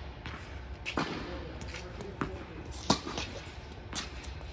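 Tennis rally: the ball struck by rackets and bouncing on a hard court, a sharp pop every second or two, the loudest about three seconds in, echoing in an indoor tennis hall.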